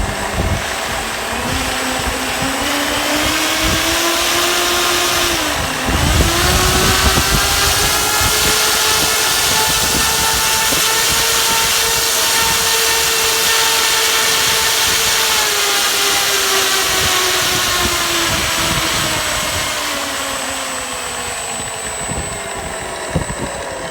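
Radio-controlled model aircraft engine running hard. Its pitch climbs over the first few seconds, dips sharply for a moment, then holds high and slowly falls away over the last several seconds.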